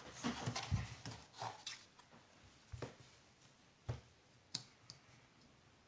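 Puzzle pieces clicking and knocking as they are handled and tried together. There is a busy patter of small knocks for the first couple of seconds, then three single clicks spaced about a second apart.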